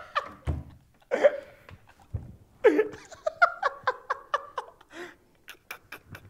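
People laughing: a short burst about a second in, then a run of quick, pulsed laughs. Near the end come a few sharp, quick clicks.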